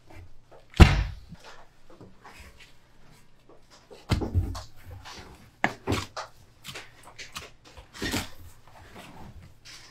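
Thuds and knocks of a large mass of bread dough being dropped into and handled in a wooden box by gloved hands. There is one loud thud about a second in, then softer thuds and slaps in the middle and again near the end.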